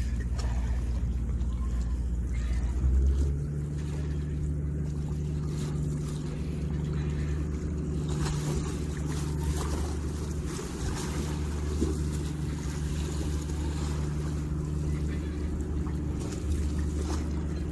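Boat engine running steadily, a low hum that changes pitch about three seconds in.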